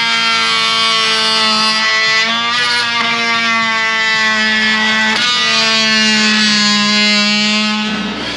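Cordless oscillating multi-tool buzzing steadily as its blade cuts a waste pipe off flush with the concrete floor. The pitch sags briefly a few times as the blade loads up, and the tool stops just before the end.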